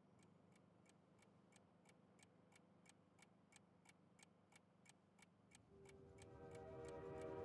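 Faint, steady, clock-like ticking, about three ticks a second, over a low hum. About six seconds in, sustained musical tones swell in and grow louder.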